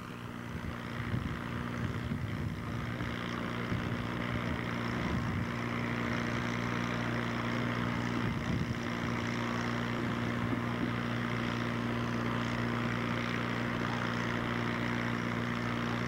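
Heavy truck engine running steadily at a low, even pitch as the truck creeps slowly forward, growing a little louder over the first few seconds.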